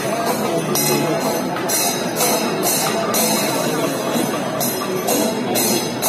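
Kerala temple percussion ensemble (melam) playing: chenda drums with ilathalam cymbals clashing about twice a second.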